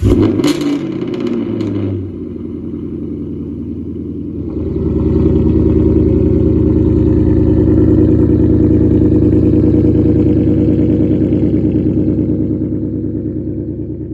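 Ford Mustang GT's 5.0 Coyote V8, with muffler delete and X-pipe, on a cold start: it fires with a loud rev flare and settles to a steady fast idle. It is louder from about four seconds in, heard close to the exhaust tips, and eases off a little near the end.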